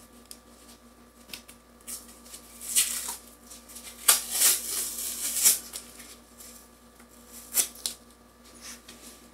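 Wrapping of a wound-dressing supply crinkling and being pulled apart in gloved hands. It comes in short bursts of rustling, the loudest and longest about four to five and a half seconds in, with another brief one near the end.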